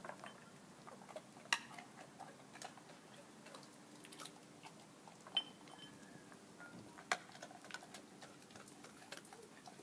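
A chocolate Labrador eating from a ceramic bowl: scattered small clicks and clinks of mouth and tongue against the bowl, with three louder clinks.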